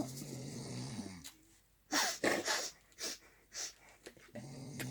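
A person snoring: a low drawn-out snore, a pause, then a few short breathy hisses, and another low snore starting near the end.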